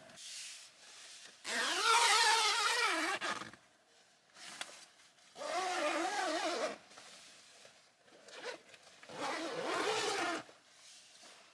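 A zipper pulled in three separate runs of a second or two each, its rasp wavering in pitch as the pull speeds up and slows.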